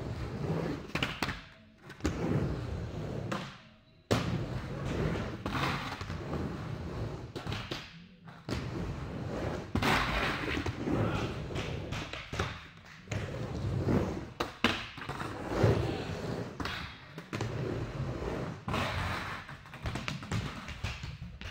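Irregular thumps and knocks, with a sudden louder knock about four seconds in.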